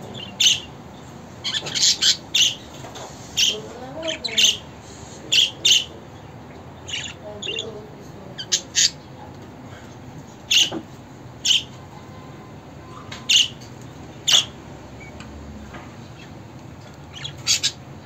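Budgerigars giving short, sharp squawks and chirps at irregular intervals, roughly one a second.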